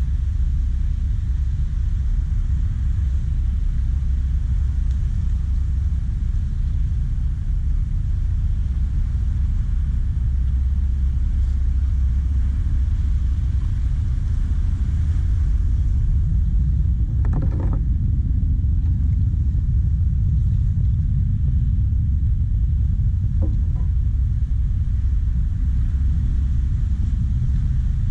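Steady low rumble of wind buffeting an action camera's microphone at sea, with two brief higher sounds breaking through about two-thirds of the way in and again near the end.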